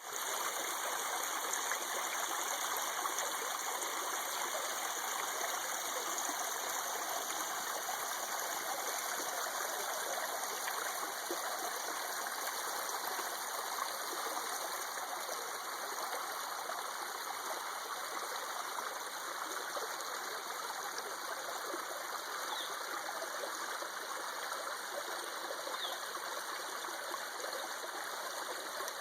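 A babbling stream: a steady, unbroken sound of flowing, trickling water.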